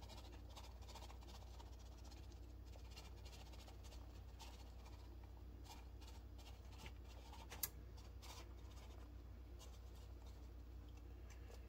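Faint rustling and light ticking of shredded cheese being sprinkled by hand over a dish of enchiladas, over a steady low hum, with one sharper click about two-thirds of the way through.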